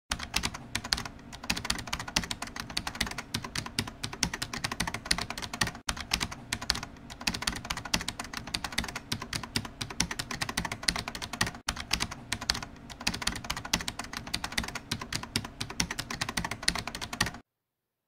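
Computer-keyboard typing sound effect: fast, continuous key clicks, broken by brief gaps about every six seconds and cutting off suddenly near the end.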